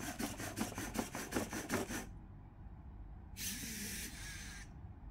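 Robosen Bumblebee robot responding to a voice command: a fast run of mechanical ticks, about seven a second, for about two seconds, then a short hiss about three and a half seconds in. The command was "Convert", and this is not a transformation, because the robot cannot transform.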